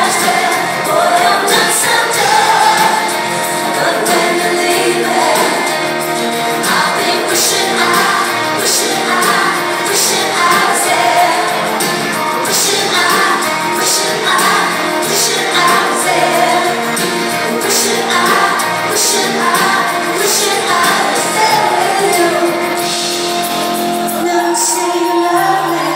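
Live pop-rock band performance: a female lead vocal sung over electric guitars and a drum kit, with regular cymbal hits, heard from the audience in a large hall.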